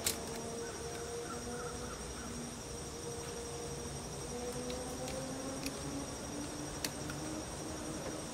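Crickets trilling steadily in the background, with a faint low hum and a few soft clicks.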